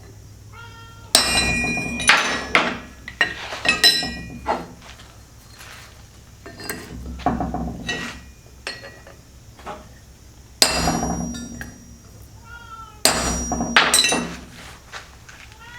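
Steel pieces being struck and handled, sharp clanks with a ringing metallic tone in several loud spells, and a cat meowing faintly a couple of times in between.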